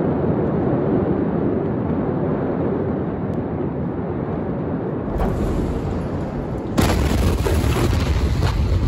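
A steady rumbling noise, then a deep rumble swells about five seconds in. Near seven seconds the blast wave of the port's ammonium nitrate explosion strikes: a sudden loud boom with crashing and clattering debris.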